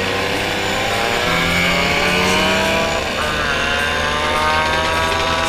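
Two-stroke Vespa scooter engine pulling hard under acceleration, its pitch rising steadily; about three seconds in the note breaks and jumps, then keeps climbing.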